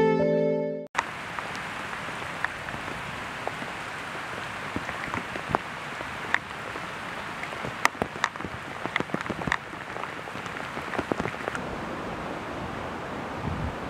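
Heavy rain falling on a pond's surface: a steady hiss with frequent sharp drop clicks. Guitar music cuts off about a second in.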